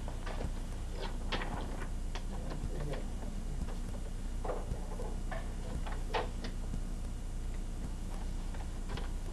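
Sheet-music paper being leafed through and handled, giving scattered, irregular light clicks and rustles over a steady low electrical hum.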